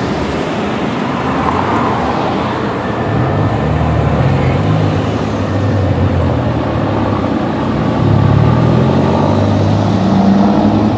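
Steady rush of freeway traffic, with a vehicle engine's low drone coming in about three seconds in and holding on.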